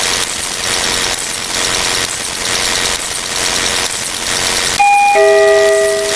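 Loud hissing noise that shifts in character about twice a second. About five seconds in, a two-note doorbell chime sounds, ding then a lower dong, the second note held nearly a second.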